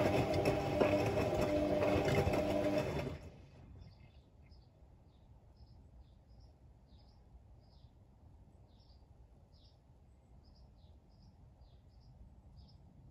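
Hotpoint Ultima Extra WMA64 washing machine turning its drum on a wash tumble: the new motor hums steadily, then cuts out about three seconds in as the drum stops. While the drum rests, only faint, irregular small ticks are heard from the wet, soapy load.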